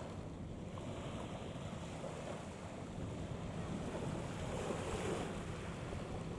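Wind buffeting the microphone over water washing against the shore, with a faint steady low hum underneath and a slight swell in the noise about five seconds in.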